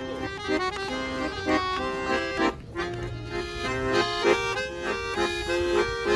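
Piano accordion played live: a lively tune of held, reedy notes and chords that change quickly, with a short break between phrases.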